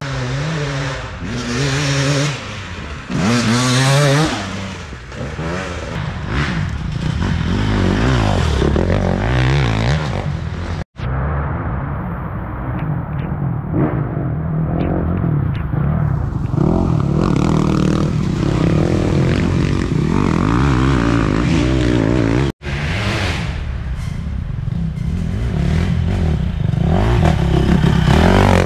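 Off-road dirt bike engines running and revving with the throttle opening and closing, the pitch rising and falling repeatedly in the first few seconds. The sound cuts out abruptly twice, between separate shots.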